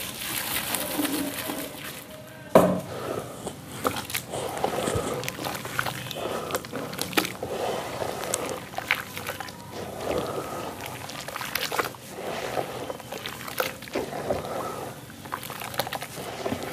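Dry white sand hissing as it is poured into water in a plastic tub for about the first two seconds, then a single sharp knock. After that, two hands stir and squeeze the wet sand in the water, with irregular sloshing and splashing.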